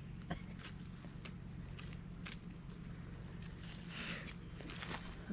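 Steady high-pitched insect chorus, with scattered footsteps crackling on leaves and twigs and a brief rustle about four seconds in.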